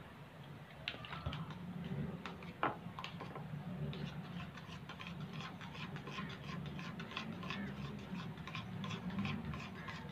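Metal spoon stirring a wet glue mixture in a small ceramic bowl, clicking and scraping against the bowl. A few separate knocks at first, the loudest a little over two seconds in, then about four seconds in a steady run of light clicks, about three or four a second.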